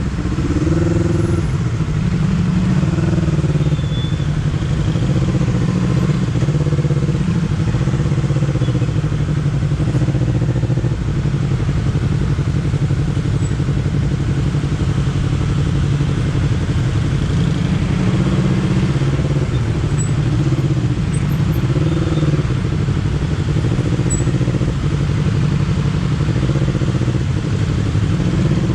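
Honda CBR250RR motorcycle engine and exhaust heard while riding, the revs rising and falling again and again with the throttle and gear changes.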